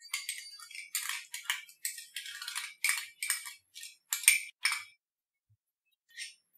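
Spatula scraping melted ghee out of a glass bowl: a run of about ten short scrapes and clinks, the sharpest a little over four seconds in.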